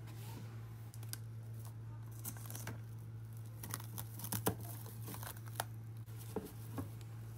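Plastic cling film crinkling in small irregular crackles as it is wrapped over a bowl of yeast starter dough, over a faint steady low hum.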